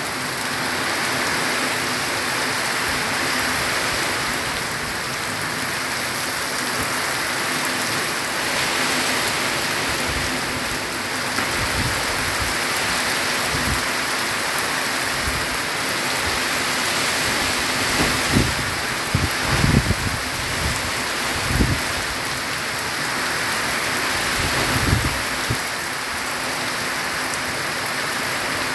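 Heavy rain drumming steadily on a corrugated zinc roof and streaming off its edge onto the ground. In the second half comes a cluster of short, low thumps, the loudest sounds in the stretch.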